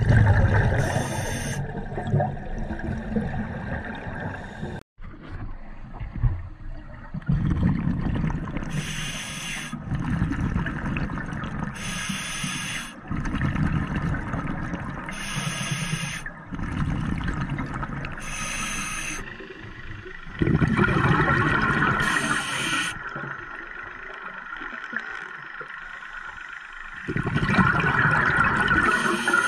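Scuba regulator breathing heard underwater: short bursts of bubbling hiss from exhaled air every few seconds, over a continuous low rumble of water movement.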